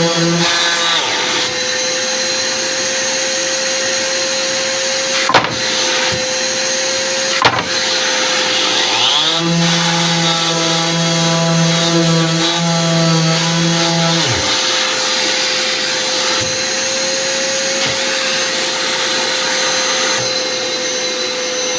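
Dexter vacuum running steadily with a constant whine while extracting chips from an Elitech COS 2012SL woodworking machine. The machine's motor winds down about a second in, spins up again around nine seconds in and runs for about five seconds before winding down; two sharp clicks come between.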